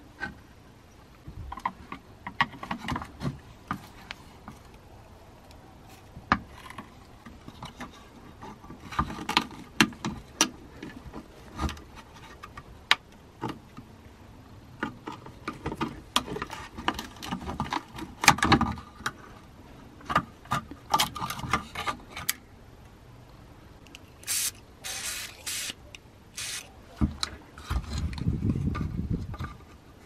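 Needle-nose pliers and hands working on an old coffee grinder's wooden base and metal parts: irregular clicks, knocks and scrapes. About three-quarters of the way through comes a run of quick rasping scrapes.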